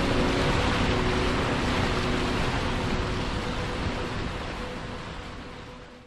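Turbulent river water rushing and churning in whitewater below a weir, a steady rush of noise that fades out over the last couple of seconds.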